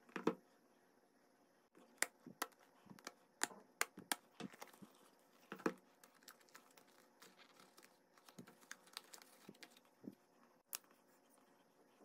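Irregular clicks and taps of hands handling a cardboard box and a small plastic camera charging case, with light rustling of paper packaging in between.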